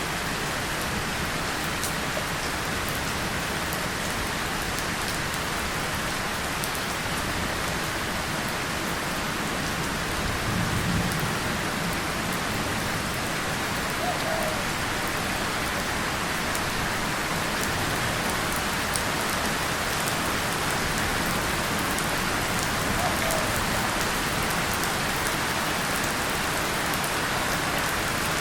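Steady rain pattering on a tin surface and leaves, with a brief low rumble of distant thunder about ten seconds in.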